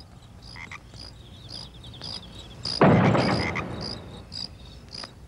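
Crickets chirping steadily, about two chirps a second. About three seconds in, a loud rough noise lasting under a second: the heavy prison door being opened.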